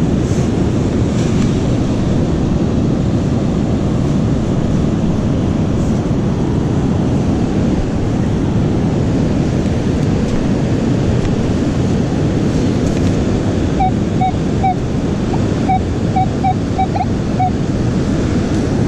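Steady rush of breaking surf with wind on the microphone. Near the end comes a run of about ten short beeps at one pitch from a metal detector sounding on a buried target.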